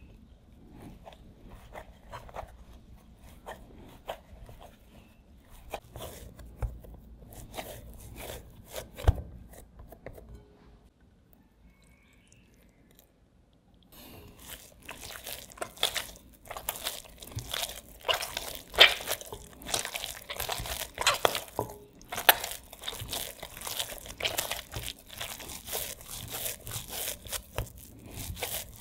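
Hands mixing a crumbly flour and mashed-potato dough in a glass bowl, with soft crunching and rubbing. After a few seconds' pause near the middle, the dough is kneaded with melted butter, giving louder, denser squishing and slapping strokes.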